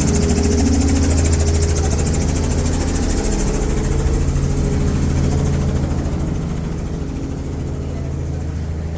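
Helicopter running close by, its engine and rotor giving a steady low hum with a fast fluttering hiss on top; the sound eases off and grows quieter over the last few seconds.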